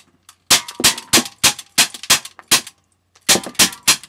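Gamo Auto 45 CO2 BB pistol firing about ten quick semi-automatic shots, seven in a rapid run, then a short pause and three more. Several shots are followed by a brief metallic ping, the BBs hitting aluminium pop cans.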